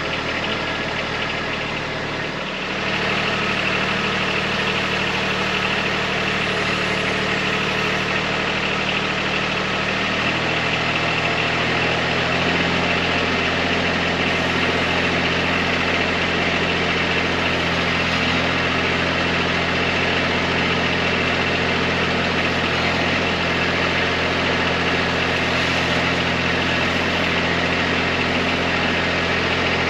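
Kubota B2301 tractor's three-cylinder diesel engine running steadily. It gets louder about three seconds in, and its note shifts up about ten seconds in.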